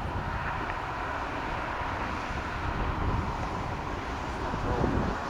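Landing airliner's jet engines: a steady whine over a low rumble, with wind buffeting the microphone.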